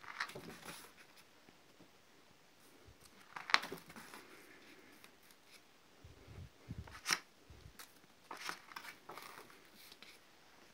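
Pages of a spiral-bound scrapbook being turned by hand: stiff, pasted-up paper pages rustling and flapping over, with two sharp snaps, one about a third of the way in and one about two-thirds in.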